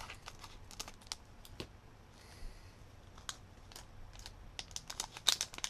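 Light, scattered clicks and taps from handling a small electronic part, coming more often near the end.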